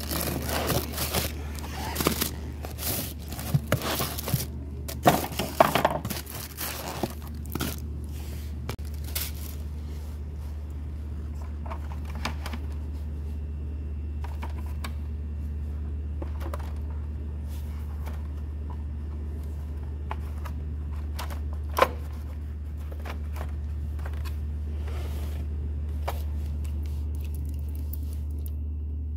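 Cardboard box flaps rustling and scraping as new sealed lead-acid batteries are lifted out by hand, with dense handling clicks for the first several seconds. After that, scattered small clicks and knocks from working on the opened battery case, one sharp click about two-thirds of the way through, over a steady low hum.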